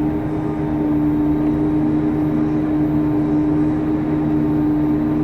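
Krone BiG X forage harvester running steadily while chopping maize, heard from inside its cab as a constant drone with a steady hum.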